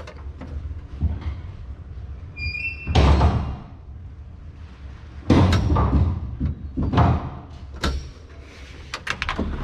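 Heavy clunks and knocks from metal parts being set down and handled, with a brief squeak just before the loudest clunk about three seconds in.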